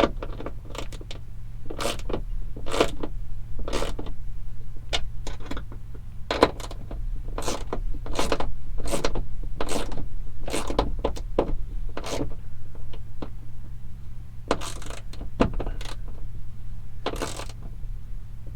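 Irregular metallic clicks and clinks, about one or two a second, of hand tools and small bolts being worked into a hood latch, over a steady low hum.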